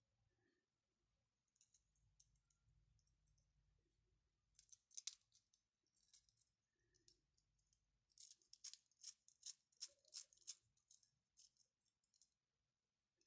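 Small 3D-printed plastic parts of a mechanical counter clicking and rattling against each other as they are handled and fitted together. There is a short cluster of clicks about five seconds in, then a run of sharper clicks, about three a second, from about eight to eleven seconds in.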